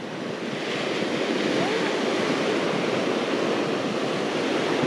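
Ocean surf: small waves breaking and washing up the sand in a steady rush of foam.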